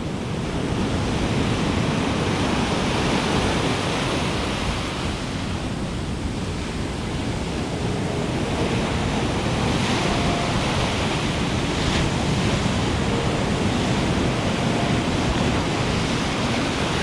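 Ocean surf breaking and washing on a beach in a steady rush, mixed with wind buffeting the microphone. Two faint clicks come about ten and twelve seconds in.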